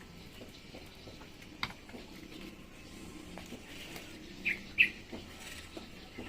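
Two short, falling bird chirps about four and a half seconds in, over scattered faint clicks and knocks.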